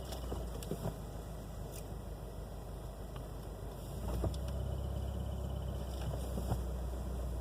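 2016 Subaru WRX's turbocharged flat-four engine idling with a steady low rumble that grows stronger about four seconds in, with a few scattered, irregular clicks. This is the stretch where the clutch pedal is being worked in and out, which quiets the ticking that the owner suspects comes from a failing throw-out bearing.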